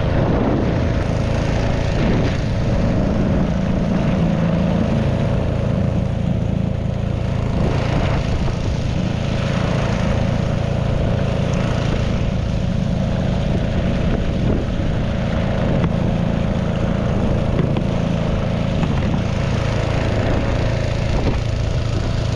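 Small boat's engine running steadily at an even pitch, with a constant low drone.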